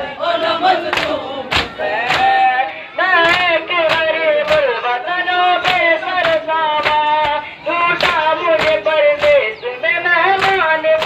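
Matam: a crowd of men beating their chests with open hands in unison, a steady beat of slaps a little under two a second, under a voice singing a nauha lament with long held notes.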